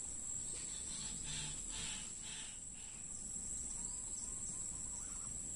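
Steady high-pitched drone of insects, cricket-like, holding one pitch throughout, with a few faint softer chirps in the first few seconds.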